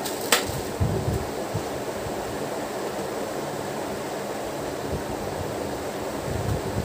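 Steady background hiss, with a sharp click about a third of a second in and a few soft low thumps of utensils and a bowl being handled on a tabletop.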